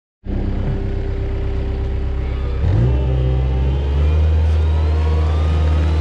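Gehl compact wheel loader's engine running steadily, then revving up and getting louder about three seconds in, with a faint whine climbing in pitch as the loader pulls away.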